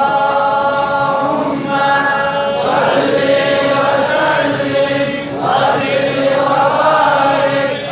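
Group of young men reciting the Quran together in melodic tilawat style, in unison, drawing out long held notes in several phrases with short breaks for breath.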